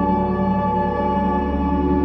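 Ambient background music: layered drone tones held steadily, with no beat or sharp strikes.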